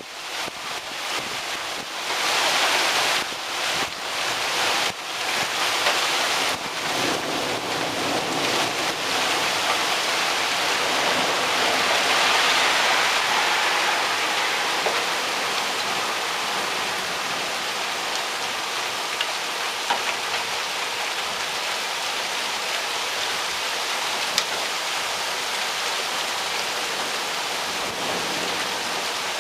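Heavy rain pouring down in a thunderstorm, a dense steady hiss. For about the first nine seconds it surges and drops unevenly, then it settles into a steady downpour with a few faint ticks.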